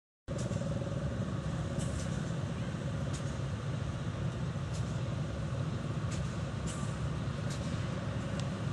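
Vintage Case tractor engine idling steadily, a low rumble with occasional sharp clicks.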